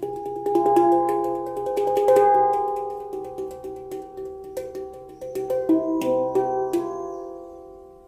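Tala handpan in the Onoleo C scale played by hand: quick finger taps on the tone fields and centre dome, each note ringing on and overlapping the next, with the ringing dying away near the end.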